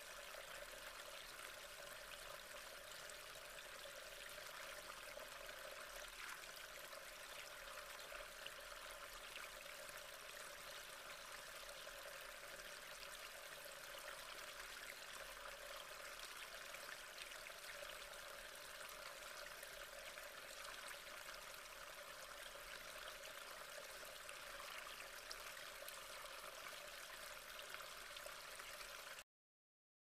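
Small brook flowing: steady running water with fine trickling. It cuts off suddenly near the end.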